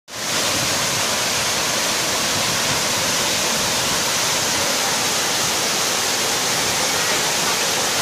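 Waterfall pouring over a rock face into a pool, a steady rushing of falling water.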